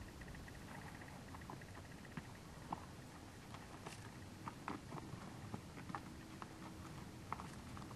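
Wild mustangs' hooves on dry, stony ground: scattered, irregular soft knocks and scuffs as the horses walk, over a low rumble of wind.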